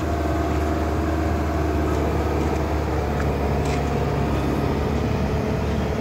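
Volvo EC150LC excavator's diesel engine running steadily under hydraulic load as the boom is raised, a constant low hum with a few faint clicks.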